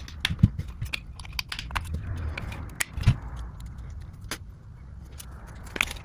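Hands unboxing gun gear: a run of small clicks, taps and light rattles of plastic packaging and metal parts, with duller knocks about half a second and three seconds in, over a low steady hum.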